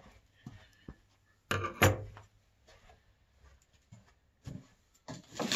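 Scattered knocks and handling noises from unpacking a cardboard box, loudest as a quick cluster of sharp knocks about one and a half seconds in. Near the end a denser, louder clatter begins.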